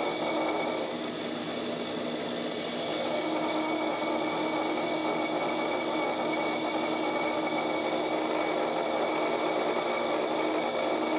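Drill press running with a quarter-inch diamond core drill grinding into a glass bottle under water. A steady motor hum sits under the grinding noise, which eases briefly about a second in and then comes back.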